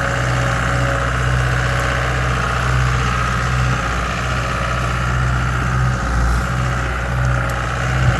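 Diesel engine of a CAT 252B skid steer running steadily.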